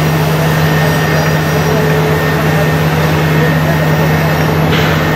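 Steady drone of a heavy diesel engine running under constant load, holding one low tone, over a wash of noise.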